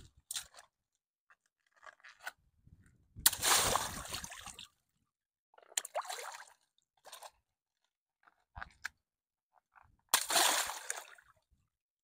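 Water balloons bursting one at a time in a plastic paddling pool, each a sharp pop followed by a splash of water. The loudest bursts come about three seconds in and again near the end, with smaller pops and splashes between.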